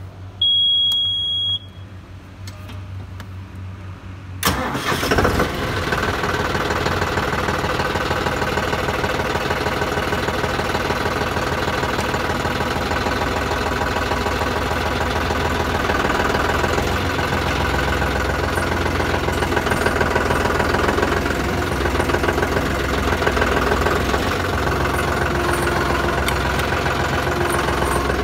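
A single steady electronic beep lasting about a second, then a few seconds later the John Deere 5405 tractor's three-cylinder diesel engine starts suddenly and settles into a steady idle.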